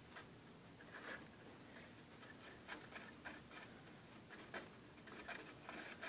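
Faint, scattered scratching and ticking of a soldering iron tip rubbing against a plastic chainsaw cover as it presses copper wire down into the melted plastic.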